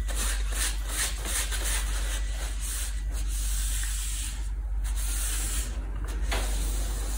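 A hand rubbing a paper tissue across a plastic sheet on the floor: a scratchy, hissing rubbing that stops about six seconds in.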